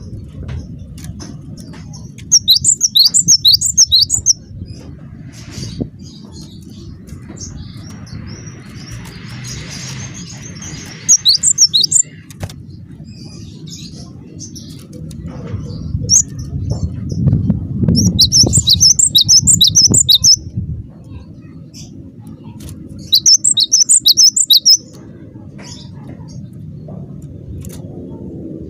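Cinereous tit (gelatik batu) singing in bursts of rapid, evenly repeated high notes, about four or five a second, four bursts of one to three seconds each, over a steady low rumble. It is a lure song of the kind played to make other gelatik batu answer.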